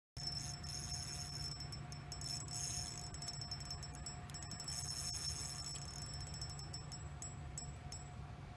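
Spinning reel's drag clicking rapidly and unevenly as a hooked sturgeon pulls line, over a steady low rumble.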